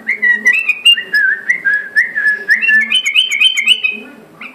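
Bulbul singing a quick, loud run of clear whistled notes that step up and down in pitch, climbing higher in the second half.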